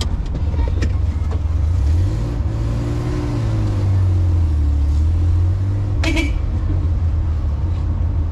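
Boat engine running with a loud, deep, steady drone; its pitch rises and falls slightly a couple of seconds in, then settles. A brief sharp sound cuts in about six seconds in.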